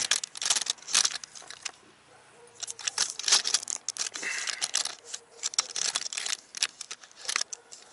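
Camera handling noise: a run of scrapes, clicks and rustles as the camera is moved and reset under the car. The noise comes in two bursts with a short lull about two seconds in.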